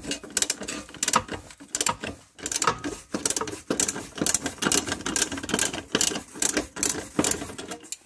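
Hand ratchet wrench with a socket on a nut, clicking in quick runs as the handle is swung back and forth, with short pauses between strokes.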